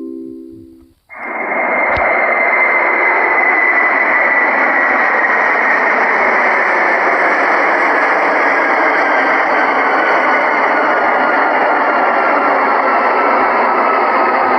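The last tones of a cabin chime die away, then a steady jet airliner rushing noise starts abruptly about a second in and holds, with a faint whine slowly falling in pitch.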